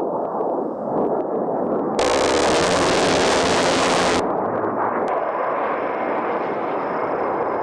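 An A-10's GAU-8 Avenger 30 mm rotary cannon firing one burst of about two seconds, a dense ripping noise that starts and stops abruptly, over a steady rushing noise.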